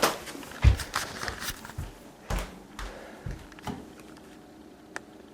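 Irregular knocks and low thumps in a small room, the loudest about half a second in, then a few fainter clicks near the end.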